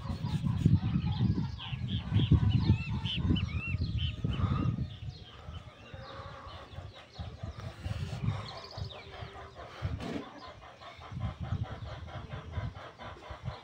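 Chickens clucking and calling, with short rising-and-falling calls in the first few seconds and a quieter run of repeated clucks later. Low rubbing and handling noise from a rag wiping paint off the trailer's metal rail is loudest in the first few seconds.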